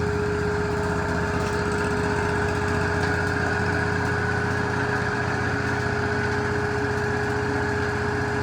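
Wood-Mizer LT40 hydraulic band sawmill's engine running steadily, with a steady whine over it.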